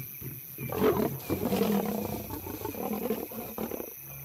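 Lions growling and snarling in an aggressive confrontation: a loud snarl about a second in, then drawn-out rough growls that die down near the end.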